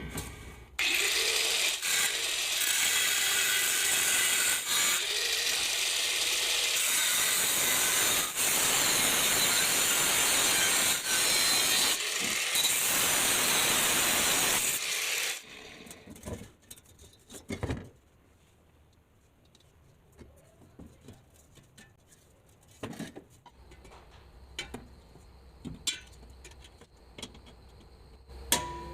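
A power tool running loud and steady for about fourteen seconds, then cutting off, followed by scattered knocks and clicks of handling.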